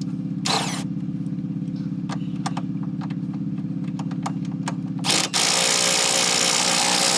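A steady, low, pulsing machine drone runs throughout. About half a second in there is a short hiss, and from about five seconds in a much louder, hissing air tool runs steadily, as used to work the shock bolts.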